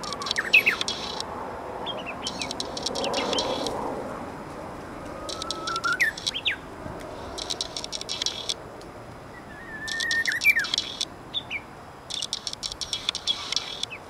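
Japanese bush warbler singing its 'hoo-hokekyo' spring song, a fairly well-formed version: three times, a held whistle leads into a quick rising flourish. Between the phrases come bursts of high, rapid ticking.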